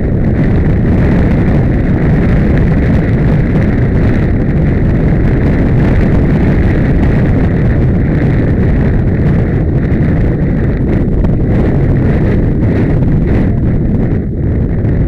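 Heavy wind buffeting on a head-mounted camera's microphone as a horse canters, a loud steady rumble, with the hoofbeats of the unshod horse on grass underneath.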